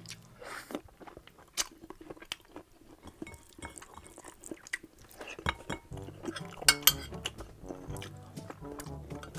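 Eating sounds of rice and Bicol Express taken by hand and spoon: chewing and mouth noises with scattered small clicks, and a couple of sharp metal spoon clinks about seven seconds in.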